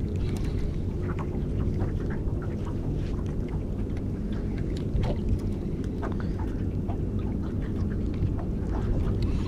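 Steady low rumble of wind and water around a small aluminium boat, with faint light knocks and ticks.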